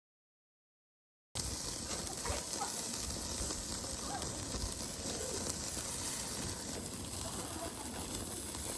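About a second of dead silence, then a steady hiss that runs on evenly.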